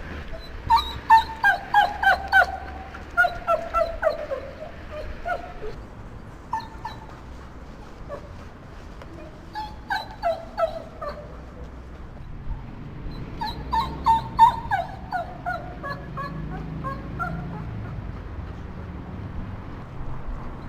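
Unhappy dog whining: three bouts of short, high whimpers, each sliding down in pitch, with quieter pauses between the bouts.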